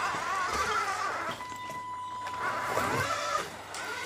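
Electric motor and gearbox of a 1/10-scale RC crawler whining as it drives, the pitch rising and falling with the throttle, quieter near the end.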